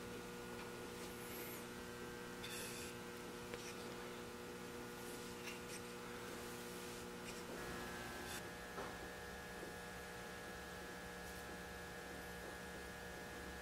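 Steady electrical mains hum, changing in tone about halfway through, with faint swishes of a paintbrush spreading polyurethane varnish across a wooden stool.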